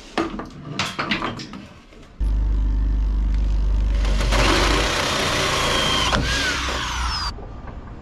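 A few knocks of plywood being handled. Then an electric drill runs steadily for about five seconds, boring a hole through the boat's deck coaming for a breather vent, and stops sharply near the end.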